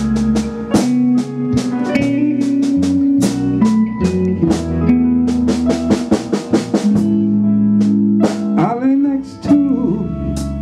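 A small band playing the instrumental intro of a soul-blues song: a steady drum beat under electric guitar, a low bass line and keyboard.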